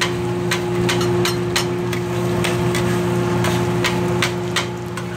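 Metal spatula clicking and scraping against a steel flat-top griddle as it works under the edge of a frying egg: sharp, irregular clicks about two to three a second. A steady machine hum runs underneath.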